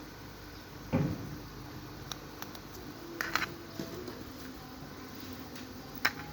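Smartphone parts and small tools handled on a work surface during disassembly: a dull knock about a second in, then scattered light clicks and taps, with a sharp click near the end, over a steady background hiss.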